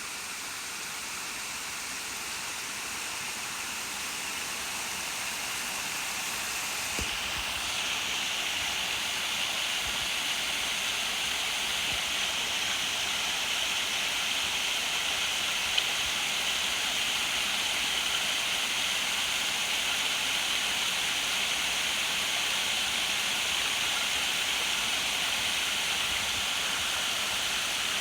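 Steady rush of water, growing gradually louder over the first several seconds, with a slight change in tone about seven seconds in.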